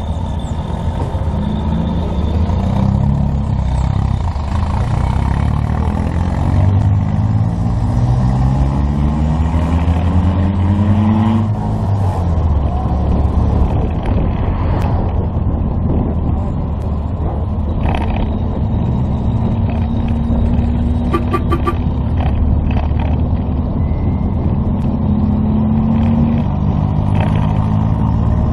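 Volkswagen Fusca (Beetle) air-cooled flat-four engine on the move, its pitch rising as it accelerates, dropping at a gear change about eleven seconds in, then steady and rising again near the end.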